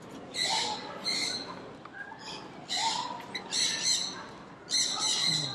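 Birds calling: about five short calls in a row, roughly a second apart.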